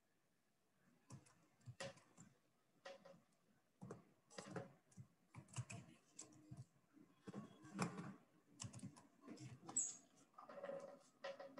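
Computer keyboard typing: faint, irregular keystrokes starting about a second in.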